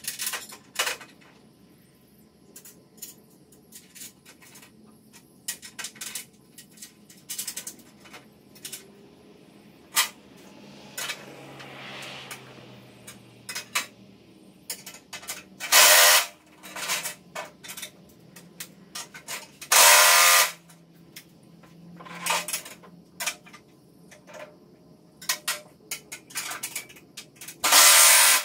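Steel bolts, washers and nuts clicking and tapping against a steel frame as parts are fitted by hand, with three short runs of a cordless drill driving nuts down, each about a second long.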